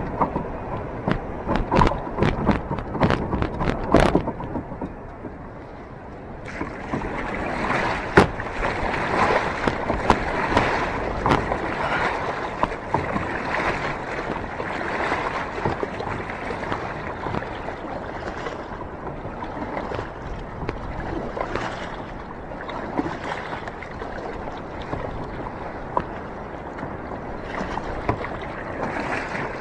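Surf and water washing around a sit-on-top fishing kayak as it works through breaking waves, with wind on the microphone. A run of sharp knocks comes in the first few seconds, and the water sound grows fuller and hissier a few seconds later.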